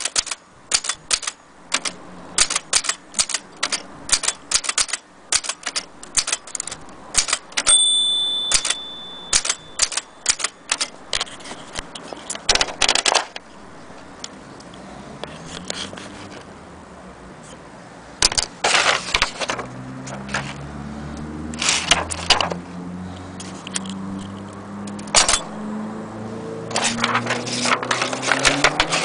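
Vintage Erika portable typewriter being typed on: quick, irregular key strikes, with a single bell-like ring about eight seconds in. The typing thins out midway and comes in short runs after that. A low hum with slowly rising pitch runs under it in the second half.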